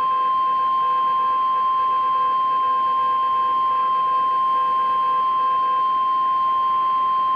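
Emergency alert attention tone: one steady pure tone of about 1 kHz, held without a break. It is the warning alarm tone that comes before a National Weather Service warning is read over the air.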